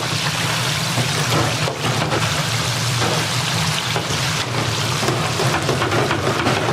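Hot oil sizzling steadily in a deep fryer, a dense crackle of fine pops, over a steady low hum.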